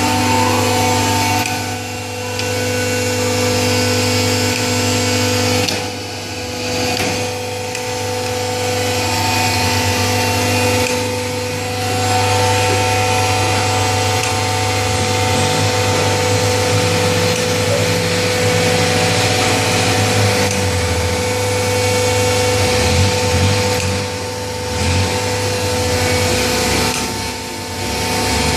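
Hydraulic baler running: a steady machine hum with several held tones over a broad noise, dipping briefly a few times.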